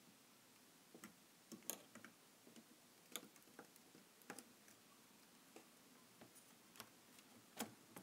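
Faint, irregular small clicks and taps from pliers and a soldering iron at a circuit board, as an old electrolytic capacitor is heated and pulled out.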